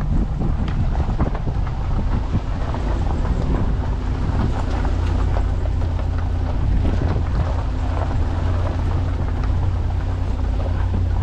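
A vehicle's engine running steadily while driving, with rattles and bumps over rough ground and wind buffeting the microphone.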